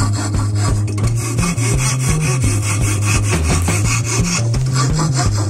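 A hand file rasping back and forth on the wooden pistol blank clamped in a vise, in repeated scraping strokes. Background music with a stepping bass line plays over it.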